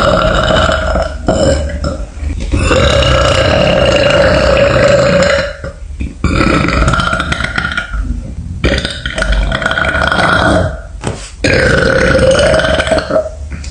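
A young woman burping loudly: a run of about five long, deep, drawn-out burps, each lasting one to three seconds, with short pauses between them.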